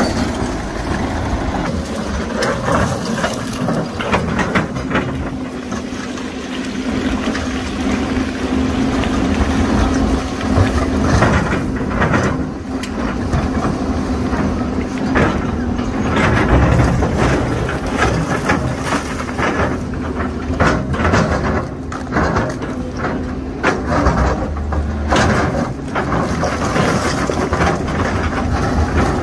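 Diesel engines of a crawler bulldozer and a Doosan crawler excavator running under load, with a steady hum. Scattered knocks and scraping come from the blade and bucket shifting big slabs of broken rock.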